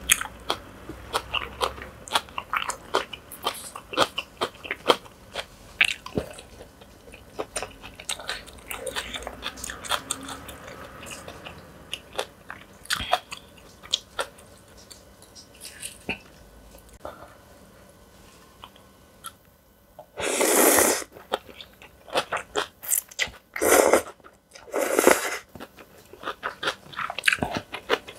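Close-miked chewing and crunching of yeolmu kimchi noodles and bibimbap, with many small crisp bites. Near the end come three louder noisy bursts, each half a second to a second long.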